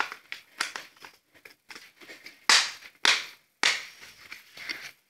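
Plastic-barrelled crayons clicking and knocking against their clear plastic case as they are handled, with three louder swishing noises about halfway through.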